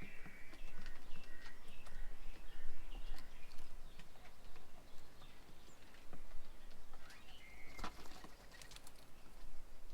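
Birds chirping and calling at a bird table, with short held notes and many scattered small clicks and taps. There is a busier burst of calls and clicks about eight seconds in.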